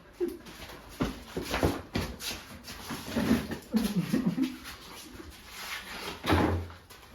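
Wordless, whimper-like vocal sounds, wavering in pitch, about three to four seconds in, among scattered light knocks and clicks.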